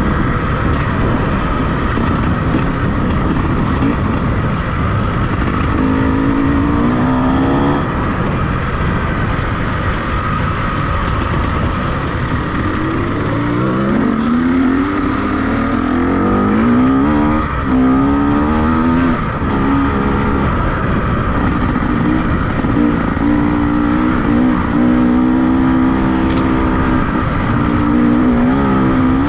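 Off-road vehicle engine running under load, its pitch climbing and falling several times with the throttle and gear changes, over a constant heavy noise of the ride.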